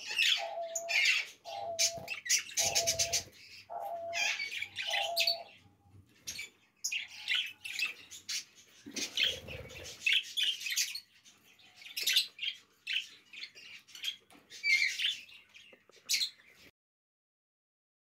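Budgerigars chirping and chattering in quick, high, irregular calls. During the first few seconds a short lower note repeats about once a second, and the calls stop shortly before the end.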